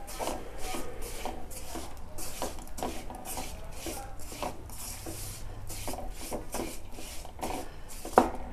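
Flat wooden spatula scraping and pressing lumps of jaggery around a metal kadai in ghee on low heat, in repeated strokes about two a second, with one sharper knock near the end. The jaggery is being melted down for the chikki base.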